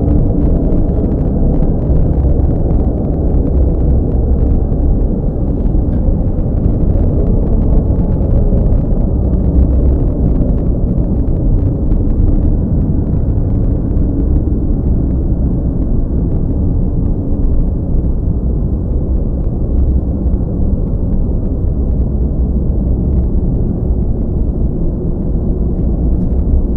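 Loud, steady, deep rumble with no clear pitch, a temple-themed sound effect.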